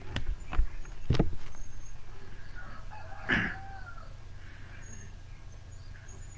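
A few sharp knocks and bumps from a phone being handled and set in place, then a single short squeak-like call with a falling pitch about three seconds in, over a steady low hum.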